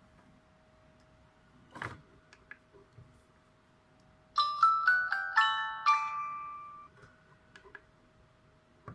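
Huawei MomoDesign MD Touch mobile phone playing a short chime ringtone through its speaker. About four and a half seconds in comes a quick run of bell-like notes that rings away over a couple of seconds. A few faint clicks come before and after it.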